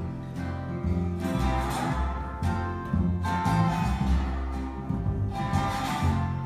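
Instrumental break in a country song: acoustic guitar playing with a steady beat and no singing.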